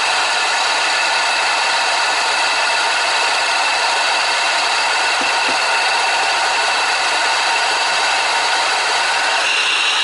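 Renault 1.5 dCi (K9K) diesel engine idling, heard close at its accessory belt with the air-conditioning compressor clutch engaged. Near the end the clutch lets go and a higher bearing whine comes back, which the mechanic puts down to a worn AC compressor pulley bearing.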